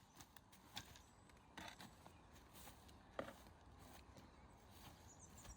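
Near silence: faint outdoor background hiss with a few soft, scattered clicks.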